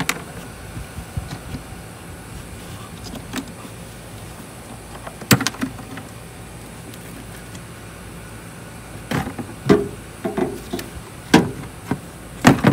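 Plastic spring clips on a Toyota Tundra's air filter box snapping open, a handful of sharp snaps spread out with most of them close together near the end, with the plastic airbox lid knocking as it is worked loose and lifted.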